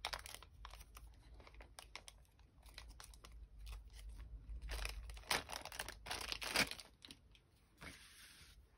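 A small clear plastic wrapper crinkling and rustling while a spool of twine is pulled out and unwound by hand, with irregular light clicks and louder crinkly stretches about halfway through and again later on.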